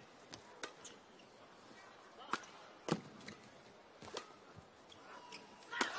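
Badminton rackets striking the shuttlecock in a fast doubles rally: a series of sharp cracks at irregular intervals, the loudest about three seconds in and just before the end.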